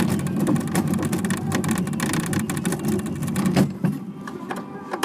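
TOGO Rally Kart battery ride-on car driving over wet asphalt: a steady low hum from its electric drive and wheels, with many small clicks and rattles. About three and a half seconds in, the hum drops away and only scattered clicks are left, as the car slows.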